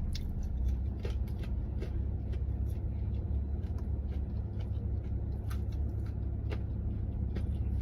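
Quiet chewing of a crispy fried chicken tender: scattered small crunches and mouth clicks over a steady low rumble.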